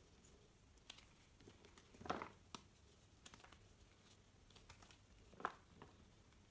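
Hands crushing and crumbling pieces of reformed gym chalk: soft, dry crunches and small cracks. There is a cluster of crunches about two seconds in and one sharp crunch about five and a half seconds in, with faint crackles between.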